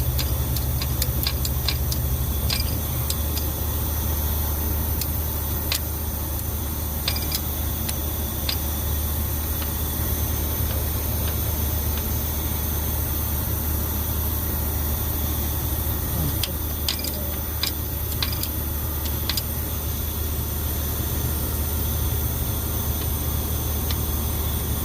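Caterpillar C11 diesel engine of a 966H wheel loader running steadily, a low even drone with irregular sharp ticks scattered through it. The engine is being checked for an abnormal knock.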